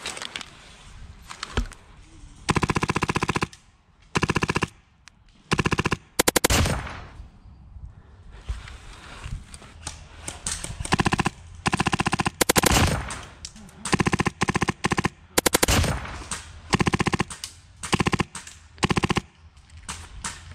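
Wolverine MTW HPA airsoft rifle firing about ten short full-auto bursts of rapid, evenly spaced shots, each burst up to about a second long, with pauses between.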